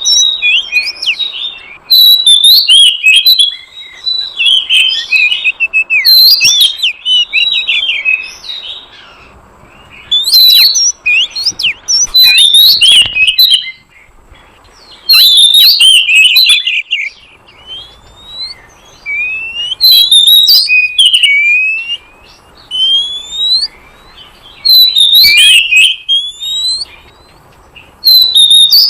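Oriental magpie-robin (kacer) song, a lure call for wild magpie-robins: loud, varied phrases of chirps, trills and rising whistles, each lasting two or three seconds with short pauses between them.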